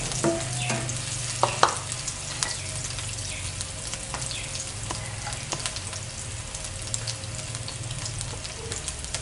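Sliced onion sizzling and crackling in hot oil in a nonstick frying pan as it is sautéed until it wilts, with a few sharp knocks about a second and a half in.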